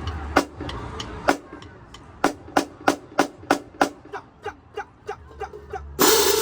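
Marching drumline: sharp, isolated drum strikes, then an even pulse of about three strikes a second that grows softer. About six seconds in, the full drumline comes in at once with a loud crash.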